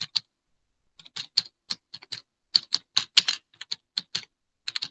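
Quick, irregular clicking and tapping of text being typed or written out, with a short pause about a second in.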